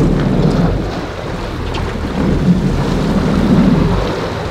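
Sportfishing boat's engine running steadily in gear, with wind buffeting the microphone in low gusts that swell about half a second in and again from about two to four seconds in.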